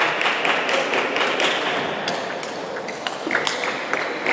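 Table tennis rally: the celluloid-type ball clicking sharply off the rubber paddles and the tabletop in quick, irregular succession, over steady hall noise.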